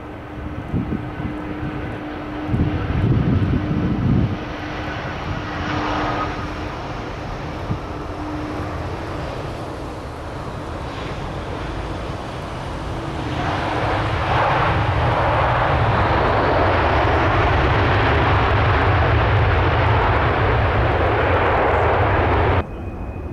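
Jet airliner engines, growing much louder about halfway through and then holding as a loud, steady roar that cuts off suddenly near the end.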